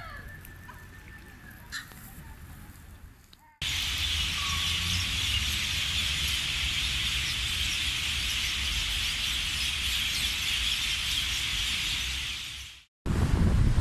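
A large flock of birds calling all at once, a dense, continuous high chatter that starts suddenly about four seconds in and fades out near the end. Before it, a few faint squeaks and clicks over a quiet background.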